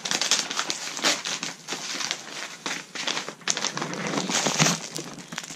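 Plastic mailer bag crinkling and rustling as it is cut open with scissors and handled, a dense run of irregular crackles.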